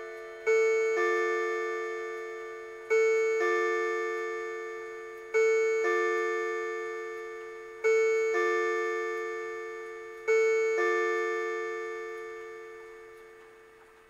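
Electronic 'bong-bong' hour-count chime of a Seiko RE502B karakuri clock, striking the hour rather than the clock's tube bells: five evenly spaced pairs of bell-like tones, about two and a half seconds apart, each ringing away slowly; the last fades out near the end.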